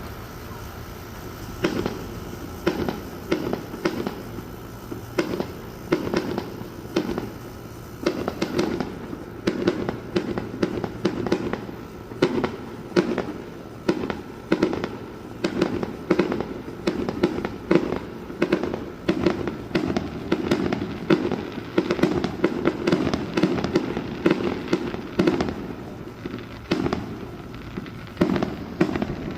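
Fireworks display: shells bursting in a rapid, irregular string of sharp bangs, one or two a second, beginning about two seconds in.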